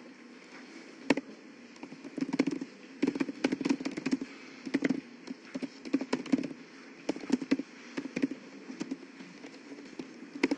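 Typing on a computer keyboard: quick, irregular runs of key clicks with short pauses between words.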